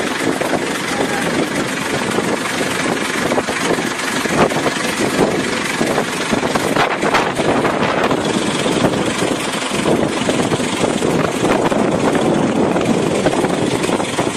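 A vehicle engine running steadily, a dense continuous rumble with no clear gunfire.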